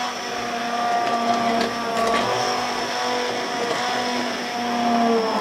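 Handheld immersion blender running steadily, puréeing chunky mushroom soup in a pot; its motor whine wavers slightly in pitch as the blade works through the mushrooms.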